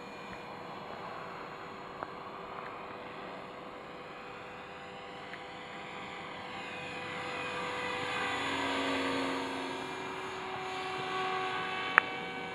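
Align T-Rex 450 Pro electric RC helicopter in flight: a steady whine from its motor and rotors, bending in pitch and growing louder about two-thirds of the way through, then easing off. A single sharp click near the end.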